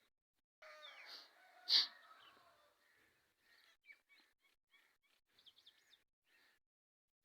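Birds chirping and calling in short, scattered notes, faintly, with one sharp louder sound about two seconds in.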